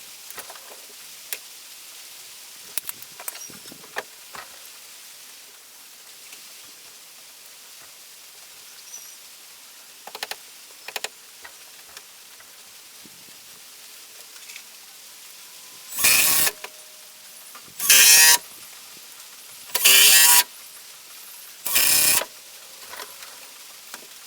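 A power driver driving screws into 2x6 lumber: four short bursts about two seconds apart, near the end. Before them come scattered light knocks and clicks of boards being handled.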